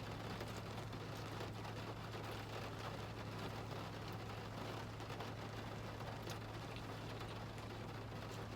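Steady rain falling on a car, heard from inside the cabin as an even patter, with a constant low hum underneath.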